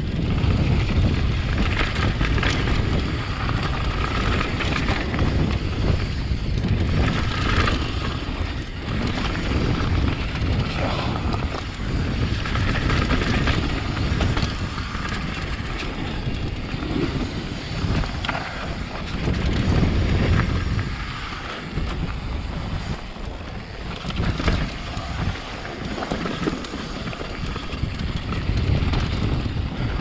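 Wind buffeting an action camera's microphone with the rumble of mountain-bike tyres rolling fast over a dirt trail, and frequent short knocks and rattles from the bike over bumps.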